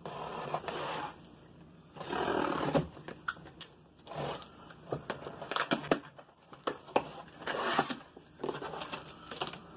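Packaging being handled and torn open to get at the chainsaw's battery: irregular rustling and tearing with sharp clicks and crinkles. There are two longer rustling stretches in the first three seconds, then shorter scattered handling noises.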